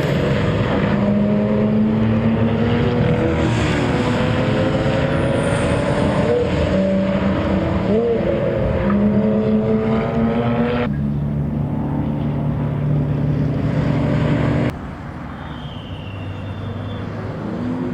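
BMW club race car engine running hard at speed, its note holding steady and then stepping in pitch with gear changes; the sound drops abruptly in loudness near the end.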